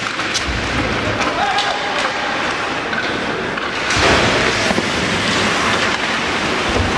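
Ice hockey game in a rink: skates scraping the ice and sharp clacks of sticks and puck over a busy hum of spectators' voices, with a louder rush of noise about four seconds in.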